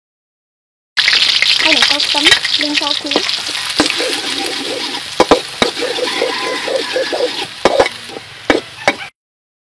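Minced garlic and chopped green onion sizzling in hot oil in a wok, with a metal spatula stirring and scraping against the pan in short clicks. The sizzle starts suddenly about a second in and cuts off near the end.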